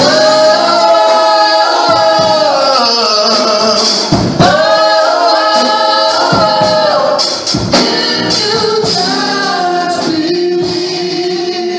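A mixed gospel vocal group of men and women singing long held notes in harmony over instrumental backing, with short breaks between phrases about four and seven and a half seconds in.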